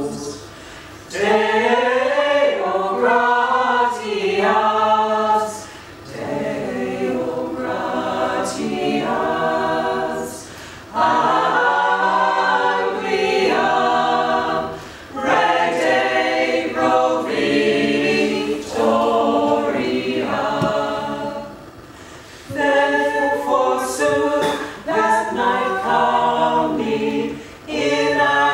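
Small mixed-voice a cappella choir, men and women, singing in several parts, in phrases of a few seconds with brief breaths between them.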